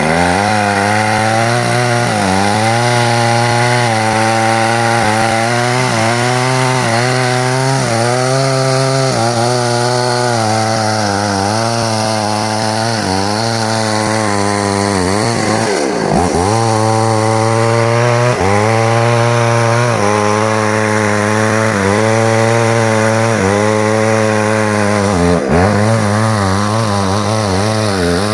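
Small petrol chainsaw running at high revs while cutting into a tree trunk, its engine pitch wavering up and down. Twice, about halfway through and again near the end, the revs dip sharply and climb back.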